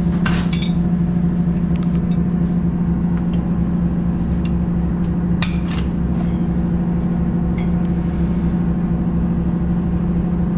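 The ship's service generator's General Motors Cleveland Diesel 8-268A, an eight-cylinder two-stroke diesel, running with a loud, steady drone. A few sharp metal clinks of wrenches on the pipe fittings sound over it, twice near the start and once about halfway.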